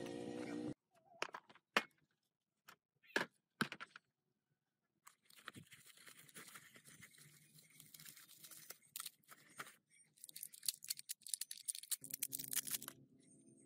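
A small cardboard parcel handled and opened by gloved hands: a few separate knocks and taps, then a long run of crackly rustling and crinkling from the cardboard and the plastic wrap around the part inside.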